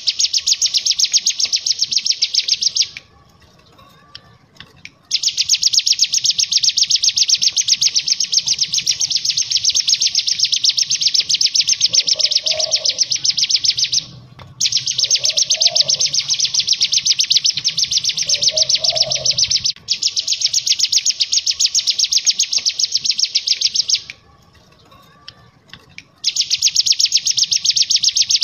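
Cigun (ciblek gunung, a prinia) singing its 'ngebren' song: long, rapid, buzzing trills of many fast notes, each run lasting several seconds, broken by short pauses of up to about two seconds.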